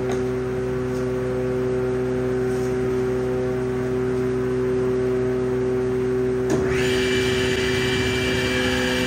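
An electric power tool or workshop machine motor running steadily with a pitched hum. About two-thirds of the way in, a higher hiss and a low rumble join it.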